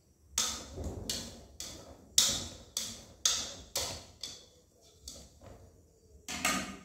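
A series of about ten sharp kitchen clacks and knocks, roughly two a second and unevenly spaced, as utensils are worked against cookware at the stove.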